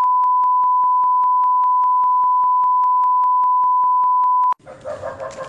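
Steady, loud, single-pitch test tone of the kind played with colour bars, cutting off abruptly about four and a half seconds in.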